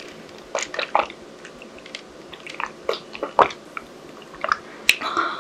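Close-miked mouth sounds of drinking from a cup: gulps and swallows, then wet clicks and smacks of the lips and tongue, short and irregular.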